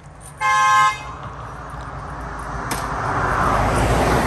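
A road vehicle's horn gives one short toot about half a second in. Then the engine and tyre noise of a vehicle going by swells, loudest near the end.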